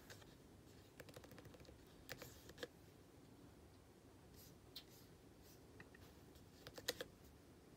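Faint keystrokes on a computer keyboard: scattered runs of quick taps as a search query is typed and edited, with the loudest cluster of clicks near the end.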